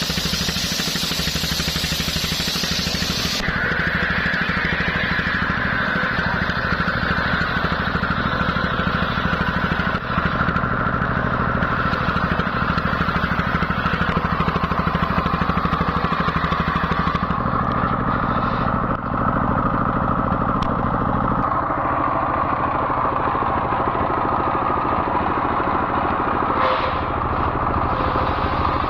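Stationary single-cylinder diesel engine running steadily and driving a circular saw that whines as it rips a coconut-palm trunk lengthwise. The saw's whine sinks slowly in pitch as the blade is loaded through the cut.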